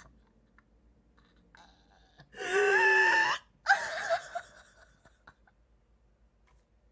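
A voice crying out in pain: one held, steady wail of about a second, then a shorter cry with a wavering pitch.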